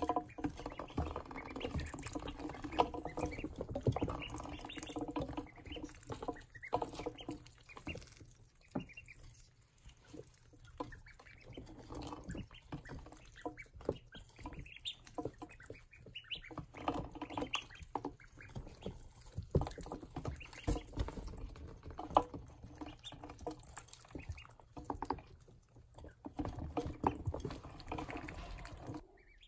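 Ducklings peeping repeatedly as they feed, with many small clicks and taps from their bills on the crumble feed and the plastic waterer. The peeping is busiest in the first few seconds and thins out around the middle.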